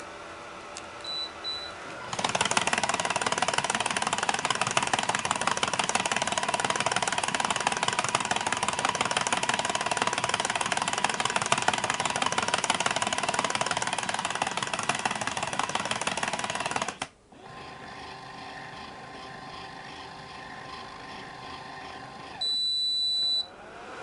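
Vacuum cleaner running loud with a crackling, rattling rush, cutting off suddenly about 17 seconds in, followed by a quieter steady hum with a faint whine. Short high electronic beeps, twice near the start and once for about a second near the end.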